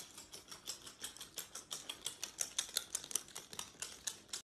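Pet claws clicking on a hard tile floor: a faint, quick, irregular run of sharp taps, about five or six a second, that stops abruptly near the end.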